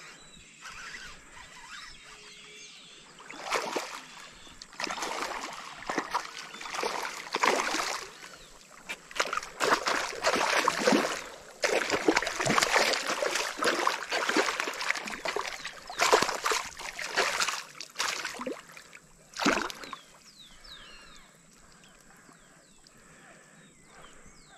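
Water splashing and sloshing in weedy shallows as a hooked traíra (trahira) thrashes and is landed by hand at the bank. The splashes come in loud, irregular bursts starting a few seconds in and die away with about five seconds left.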